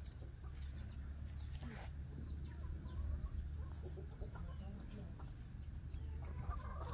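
Chickens clucking in the background over a steady low rumble, with a louder call near the end. A straight razor scrapes across beard stubble.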